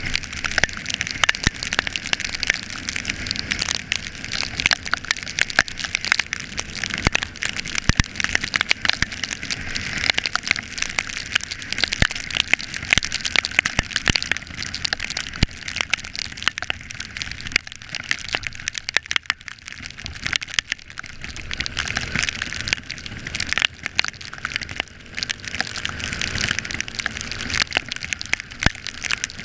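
Heavy rain: a dense, steady crackle of raindrops, with drops striking close to the microphone.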